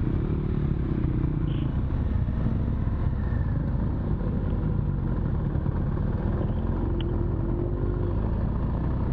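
BMW R1200GS Adventure's flat-twin engine running at low trail speed, its pitch wavering up and down with the throttle, over a steady low rumble.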